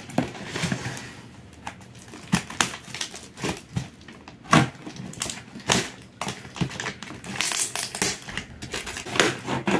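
A cardboard shipping box being cut open with a small knife and pulled apart by hand: irregular scraping, crackling and crunching of cardboard and tape, with a few louder cracks about halfway through and near the end.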